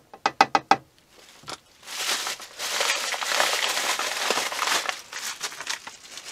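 A few quick light taps, then a plastic flour bag crinkling and rustling as it is handled for several seconds.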